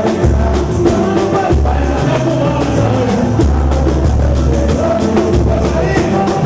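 Samba band playing: voices singing over pandeiro and percussion, with a steady bass line changing note about once a second.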